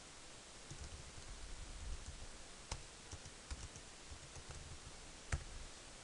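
A few faint, scattered computer keyboard keystrokes over a low steady hiss.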